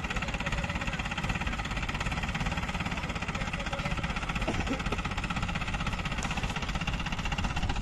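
Diesel engine of an ACE pick-and-carry mobile crane running steadily.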